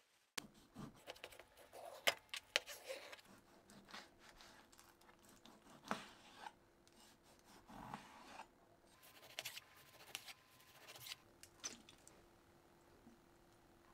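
Kitchen utensils and containers being handled: a string of small clicks, taps and scrapes over a faint steady hum.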